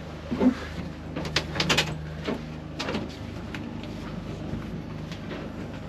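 A few light knocks and clicks in the first three seconds, over a steady low hum.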